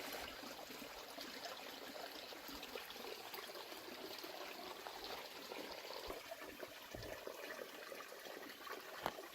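Faint, steady trickle of a small stream running over stones.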